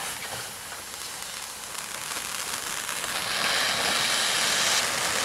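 Heart-shaped firework set piece burning, its ring of spark fountains hissing and crackling; the hiss grows louder and brighter about three seconds in as the fountains open up.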